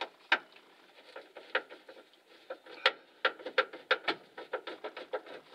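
Irregular sharp clicks and taps of hands working the heater control panel loose behind the dash of a 1970 Chevrolet C-10 pickup. The clicks come more often in the second half.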